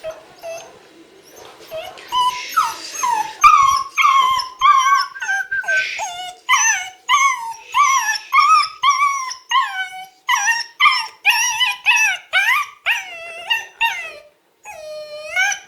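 Seven-week-old Czechoslovakian wolfdog puppy crying in a fast series of high, yelping wails, about two a second, starting about two seconds in. It is a distress reaction to the handling at the moment the handler calls a bad one ("mauvais moment").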